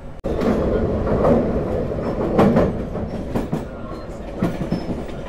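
A train running on the rails: a loud rumble with the clatter of wheels over rail joints. It starts abruptly just after a brief gap.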